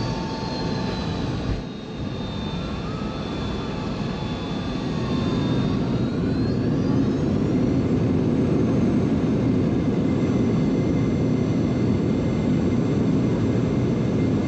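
Boeing 717's rear-mounted Rolls-Royce BR715 jet engine, heard from the cabin right beside it on landing: a whine falling at idle, a brief thump as the wheels touch down about a second and a half in, then from about six seconds a rising whine and a louder, steady roar as the engine spools up into reverse thrust.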